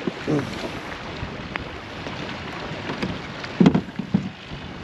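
Wind buffeting the microphone and choppy water lapping against a fishing kayak's hull, with a few light knocks of gear being handled.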